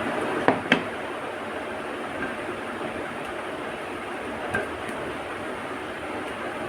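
Eating sounds: two sharp clicks a little under a second in and a weaker one about four and a half seconds in, over a steady rushing background noise.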